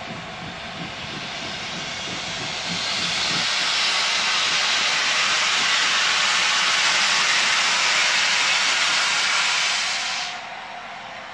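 A standing steam locomotive venting steam: a loud, steady hiss that builds up about three seconds in, holds for about seven seconds, then cuts off suddenly near the end.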